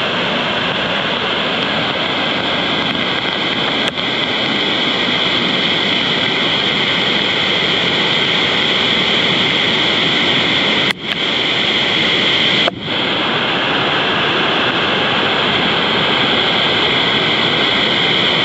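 Muddy floodwater from a creek in spate rushing over and past a low road crossing, a loud, steady roar of churning water. Twice, about eleven and thirteen seconds in, it dips for a moment.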